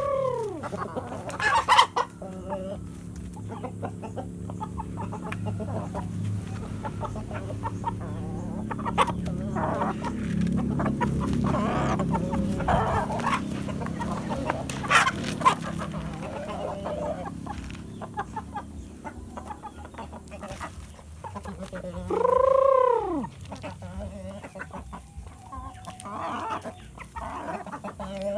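Shamo game chickens clucking as they forage, with one loud, short rooster crow rising and falling in pitch about three-quarters of the way through.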